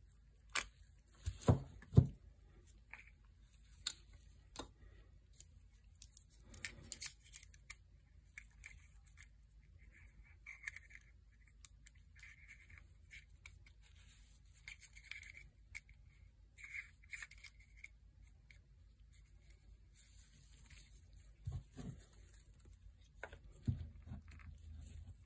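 Handling noise from an Ulanzi 16 mm clip-on phone lens: scattered clicks and a few sharp knocks as the clip and lens are taken off and put on the phone, and short scratchy rubbing while the lens barrel is twisted in gloved hands.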